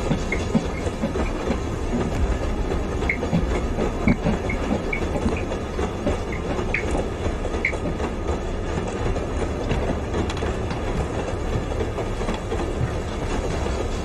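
Passenger train carriage running: a steady rumble and rattle of wheels on the track, with brief high squeaks now and then.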